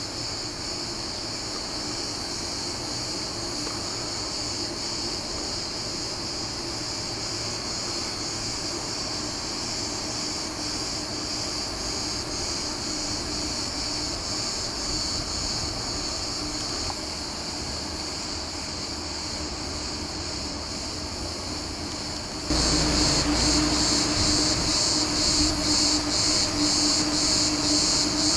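Cicadas calling as a steady high, shrill chorus, with a faint low hum beneath. About 22 seconds in, the chorus gets louder and pulses in an even rhythm.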